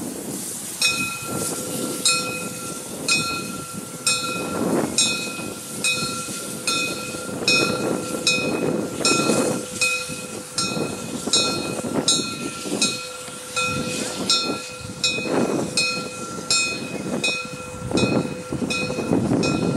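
Class 52 steam locomotive 52 8177 drawing its train slowly into the station, with a few swells of rushing noise. Over it, a bell-like warning ding sounds about one and a half times a second, starting about a second in.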